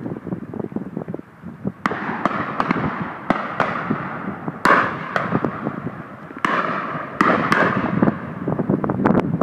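Shotguns firing on a driven game shoot: about ten shots at uneven intervals, some close together, each trailing off in an echo.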